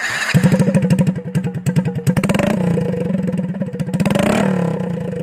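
Honda Wave 100 Alpha's small single-cylinder four-stroke engine starting and running with no exhaust pipe fitted, a rapid, loud open-port popping. The throttle is blipped twice, about two seconds in and again about four seconds in.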